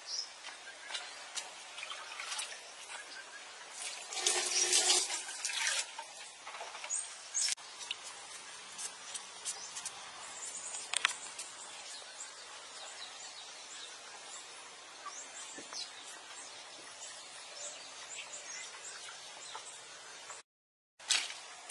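Rural outdoor ambience: a steady hiss with scattered small clicks and rustles, a louder rustling burst about four seconds in, and occasional faint bird chirps.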